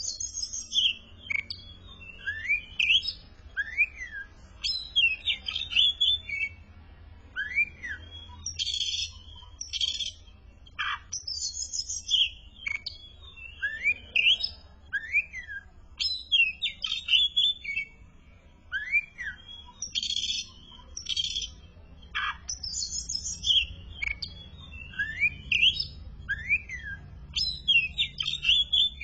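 Oriental magpie-robin (kacer) in full, active song: a varied run of rapid chirps, sharp notes and rising-and-falling whistles, phrase after phrase, over a faint low hum.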